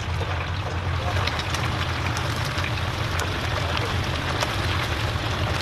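Hot oil in a deep fryer sizzling and bubbling around whole chickens, with many small crackles, over a steady low hum.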